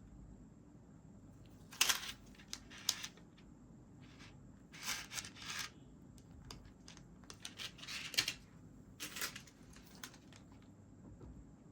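Packaging being handled, rustling and crinkling in several short bursts.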